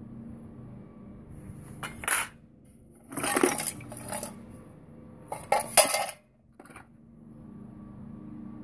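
Old metal tools and scrap clinking and clattering against each other in a plastic crate as they are put down and rummaged through, in several separate bursts, the loudest about six seconds in. A faint steady hum lies underneath.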